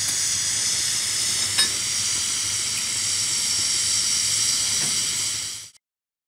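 Steam hissing steadily from a narrow-gauge steam locomotive at close range, with one sharp click about a second and a half in. The sound stops abruptly near the end.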